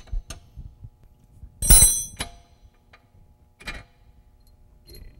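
Ratchet wrench clicking and metal tools clinking while loosening the lower mount bolt of a rear shock absorber, with a loud ringing metal clink about two seconds in and a shorter one nearly two seconds later.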